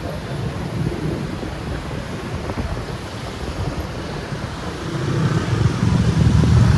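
Road traffic noise with wind buffeting the microphone: a steady low vehicle rumble that grows louder about five seconds in as a heavy engine draws closer.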